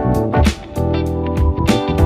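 Background music led by guitar, with a steady beat and bass.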